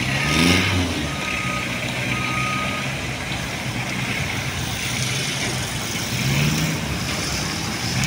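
Street traffic with a motor vehicle's engine running close by, its pitch rising just after the start and again near the end. Three short, even electronic beeps sound between about one and three seconds in.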